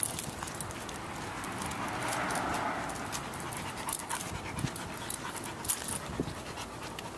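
A dog panting hard with its mouth open after exertion, the breathing loudest about two to three seconds in, with scattered light clicks.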